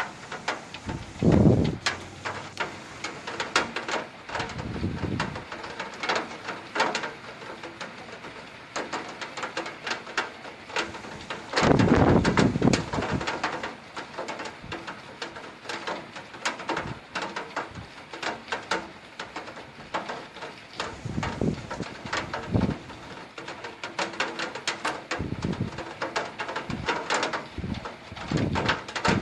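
Heavy rainstorm: raindrops striking a hard surface in a dense, irregular patter of clicks and knocks, broken by several short low thuds, the longest about twelve seconds in.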